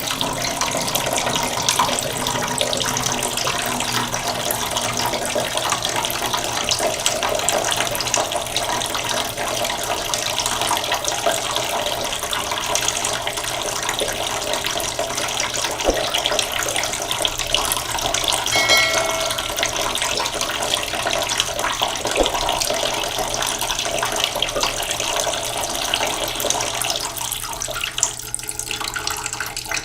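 Waterfall: a steady, continuous rush of falling water splashing.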